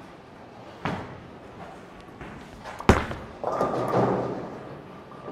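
Bowling ball thumping down onto the lane about a second in. About two seconds later comes a loud sharp crack as it hits the pins, followed by the pins clattering.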